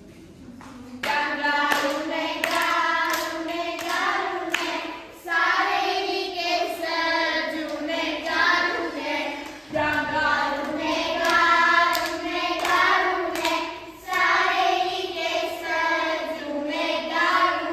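A group of young children singing together without accompaniment, in phrases of about four seconds with short breaks between. Sharp claps or taps sound among the voices.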